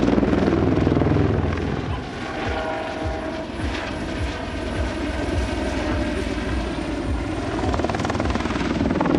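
Eurocopter EC120B Colibri single-turbine helicopter flying aerobatics overhead, its rotor beating in a fast, even pulse. A steady higher tone joins in from about two to four seconds in.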